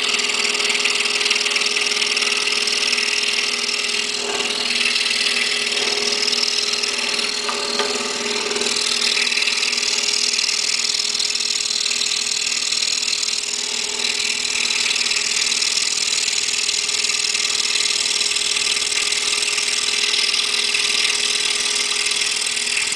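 Excalibur scroll saw running steadily, its fine blade cutting a tight curve in a thin wooden plaque as the piece is turned by hand.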